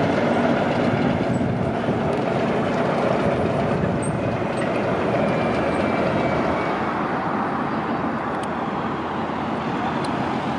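A vehicle running steadily, a continuous engine hum and rumble that eases slightly in the second half.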